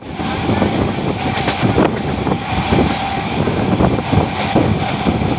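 Indian express train running at speed, heard from an open coach doorway: a steady rumble of wheels on the rails with frequent knocks and rattles from the coach.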